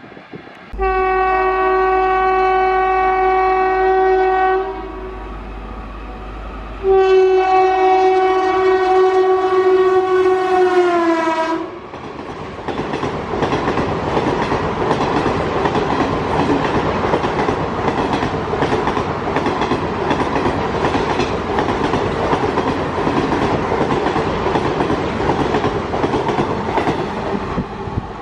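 Locomotive air horn sounding two long blasts, the second sagging in pitch as it ends. The horn then gives way to the steady rumble of a train running on the track, with wheels clicking over rail joints.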